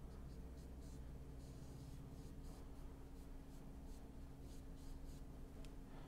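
Faint scratchy strokes of a paintbrush working acrylic paint onto canvas, over a steady low hum.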